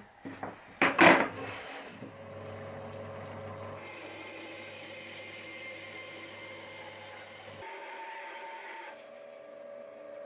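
A few loud scratching strokes of a pencil across a pine board, the loudest about a second in. These are followed by the steady hum of a benchtop band saw running.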